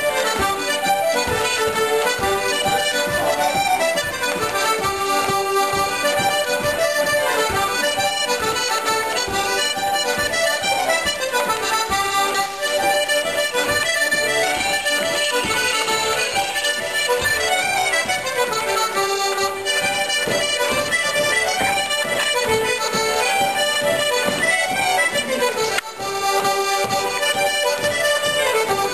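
Squeeze-box and fiddle playing a lively traditional dance tune for rapper sword dancing, with a steady beat throughout.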